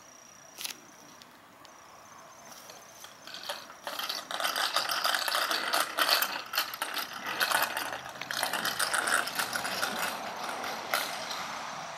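Small children's bicycle with training wheels rolling over an asphalt driveway, its training wheels and parts rattling and clicking fast. Starts quietly and grows loud about four seconds in as the bike gets going, easing off near the end.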